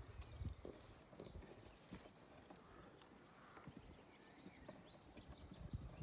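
Faint birdsong outdoors: small birds singing quick repeated trills and short whistled notes, the trilling strongest near the end, over a low rumble of outdoor background noise.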